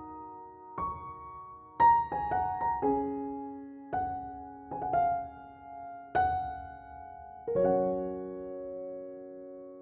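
Background piano music: slow, gentle notes and chords, each struck and left to ring. The last chord, near the end, is held and fades away.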